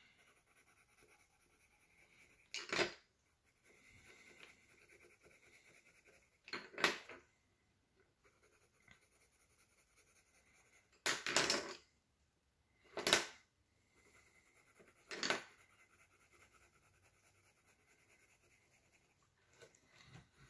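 Colored pencil shading on sketchbook paper: a faint, steady scratching, broken by five short, louder noises spaced a few seconds apart.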